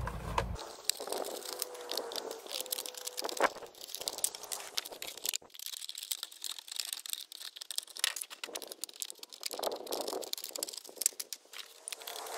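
Thin plastic bottles crinkling and crackling as they are handled and cut up, a run of quick, irregular clicks and crackles.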